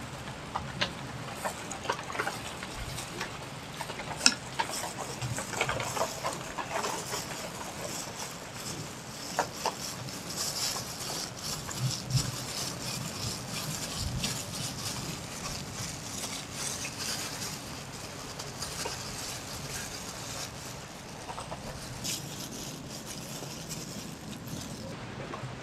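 Thin plastic food-prep gloves crinkling as hands scoop and press grated cassava on a banana leaf, with scattered small clicks and taps.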